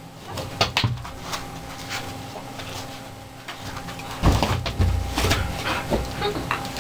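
A dog moving close to a floor-level microphone: scattered small knocks and rustles, with a burst of loud low thumps a little past the middle as the dog comes right up against the camera.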